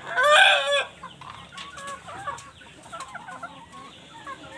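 Indio Gigante chickens calling: a rooster's loud crow ends in the first second, followed by soft, scattered clucking.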